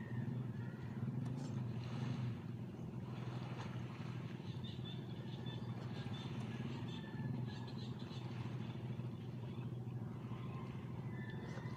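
An engine running steadily with a low hum, with faint short high chirps on and off over it.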